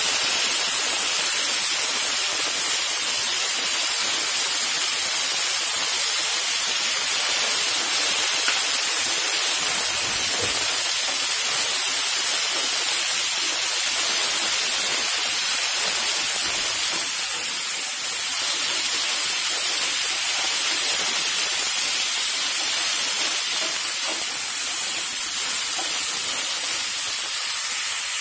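Broccoli and carrot pieces sizzling and hissing steadily in hot oil in a frying pan.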